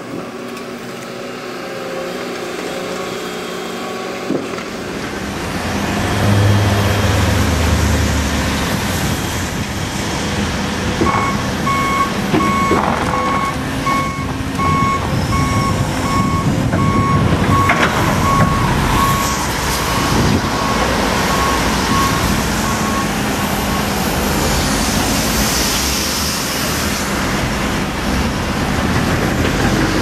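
Diesel engines of heavy construction machinery (tracked excavators and a wheel loader) running and working, growing louder about five seconds in. A reversing alarm beeps steadily and evenly for about twelve seconds in the middle, then stops.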